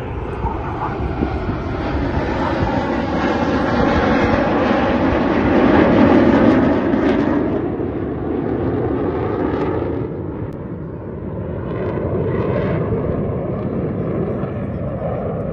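Military aircraft passing overhead in a display flypast: a rushing engine noise that builds to a peak about six seconds in, eases off, then swells again.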